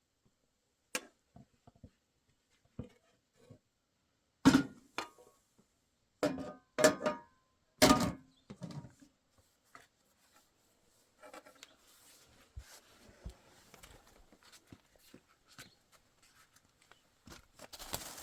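A series of sharp knocks and thuds, the loudest in a cluster between about four and eight seconds in, followed by faint scattered crackling and a rising hiss near the end.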